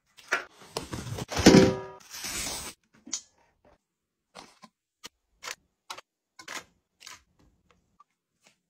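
Handling noise: a loud burst of rubbing and scraping with a short squeak in the first couple of seconds, then scattered light clicks and taps as a cardboard carton is opened and handled.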